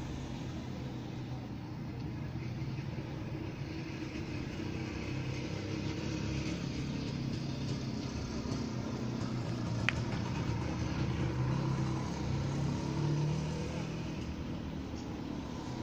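Street traffic: car and motorcycle engines going by on the road, the sound swelling through the middle and easing off near the end, with one short sharp click about ten seconds in.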